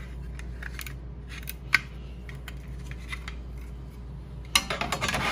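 Hard plastic clicks as the fold-out stabilizer legs on a propane stove's plastic tank base are swung open, with one sharp click about two seconds in and a louder clatter near the end.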